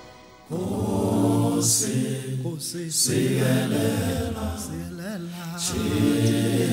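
Soundtrack music: a group of low voices singing an unaccompanied chant in long held notes, starting about half a second in as an earlier piece fades out.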